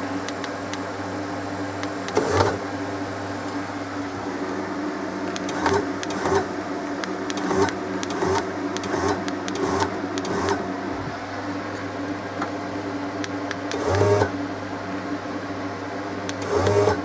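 Electric roof-lift motor of a Jayco pop-up camper running steadily, driving the threaded-rod cable lift to lower the roof, with scattered clicks and knocks from the mechanism, the loudest about two seconds in and near the end.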